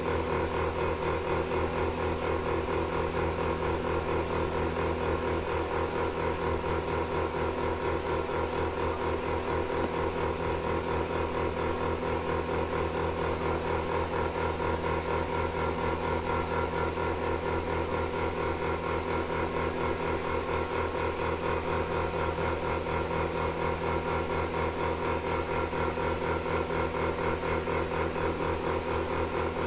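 Milking machine running steadily: a constant hum with a fast, regular pulsing beat.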